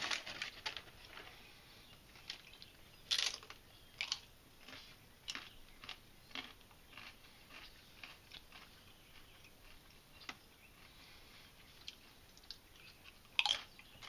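A person biting into and chewing crisp, house-made deep-fried potato chips: separate sharp crunches a second or so apart, with louder bites about three seconds in and near the end.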